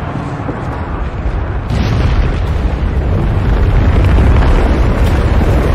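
Film sound design of an avalanche: a heavy, deep rumble that swells louder about two seconds in and keeps building.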